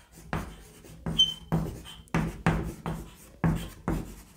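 Chalk writing on a blackboard: a quick run of taps and scrapes, about two to three strokes a second.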